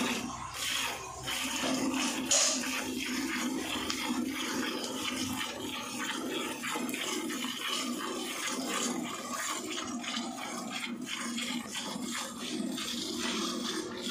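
Milk squirting from a cow's teats into a steel bucket during hand milking, a steady run of quick squirts into the pail.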